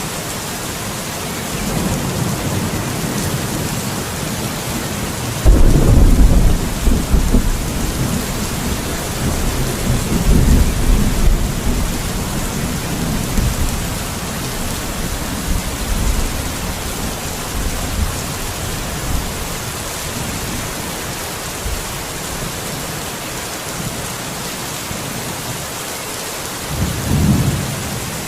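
Steady rain with thunder: a sudden loud clap about five seconds in rolls on for several seconds, and a shorter rumble comes near the end.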